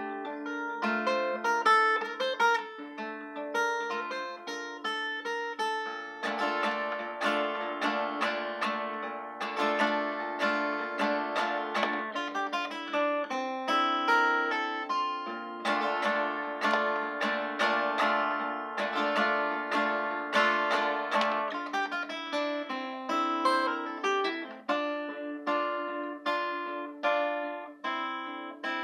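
Acoustic guitar with a capo, played solo: picked notes and chords, thickening into fuller ringing chord passages twice in the middle.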